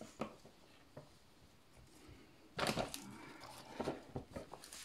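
Hands working potting soil around primrose plants: faint crumbly scrapes and small clicks, with one louder, short rustle about two and a half seconds in.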